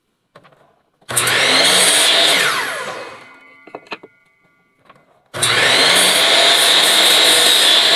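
Bosch miter saw starting up twice to cut an angle on a pine board, each run starting abruptly and then winding down with a falling whine; the second cut starts about five seconds in. A few light knocks come between them as the board is repositioned.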